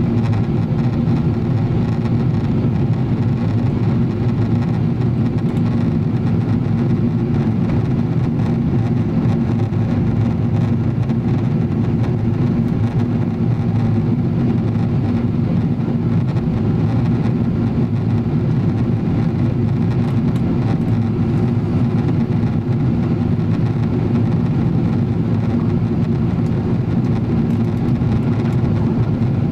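Steady cabin noise inside a Boeing 777-300ER on descent: an even, low drone from its GE90 engines and the airflow past the fuselage, heard near the wing.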